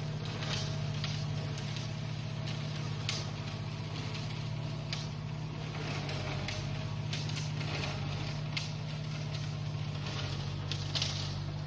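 New Holland TCE 50 tractor's diesel engine running at a steady speed, a constant low hum, with a scatter of short sharp crackles and ticks over it.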